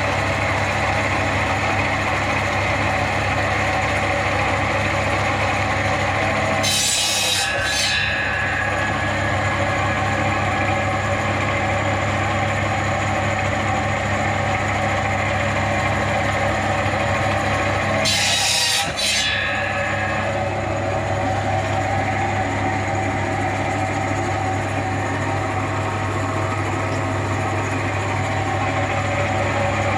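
A heavy machine's engine running steadily at an even speed. Twice a brief hiss of about a second cuts in over it.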